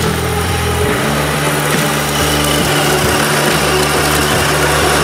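Background music with sustained low chords that change pitch about a second in, and a steady high tone entering partway through.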